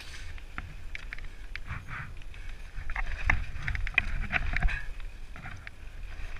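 Mountain bike clattering down a rough dirt trail: irregular clicks and knocks from the bike over a steady low rumble of tyres on the ground and wind on the microphone, a few louder knocks near the middle.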